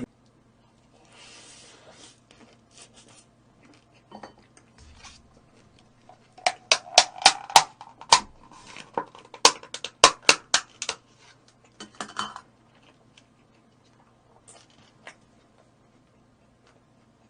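Utensils clicking and scraping against a dish while handling roast chicken: a run of sharp clicks about six seconds in lasting several seconds, another short cluster a little later, with softer rustling before.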